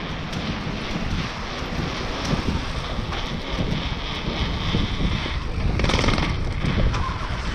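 Mountain bike ridden fast over paving stones, heard from the rider's camera: wind buffeting the microphone over the rumble of tyres and the rattle of the bike on the bumps, with a harder jolt about six seconds in.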